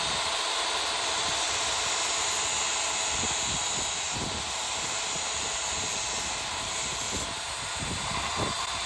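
A piston ring end being ground on a ring gap filer, a steady, even grinding hiss that goes on without a break. The ring's end is being taken down in small amounts to widen the top-ring end gap.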